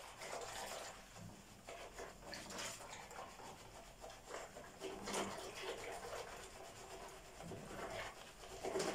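A spoon stirring milk mixed with yogurt starter in a bowl: faint, irregular scraping and swishing strokes.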